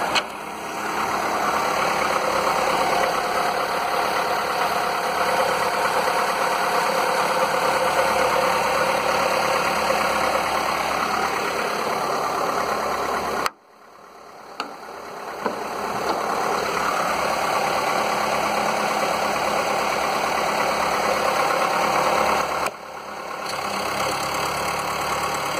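Skoda 1.4 16V petrol engine (code BKY) idling just after a cold morning start, freshly rebuilt with replacement pistons to cure piston slap. The engine sound drops out sharply about halfway through and swells back over a few seconds, then dips again briefly near the end.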